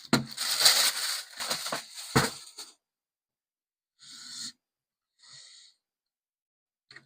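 Keyboard packaging being handled: rustling and scraping of box material with a sharp knock about two seconds in, then two short scrapes.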